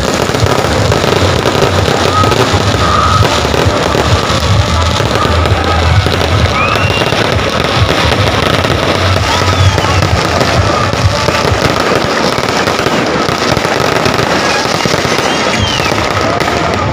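Fireworks going off in dense, continuous crackles and pops, with music playing underneath.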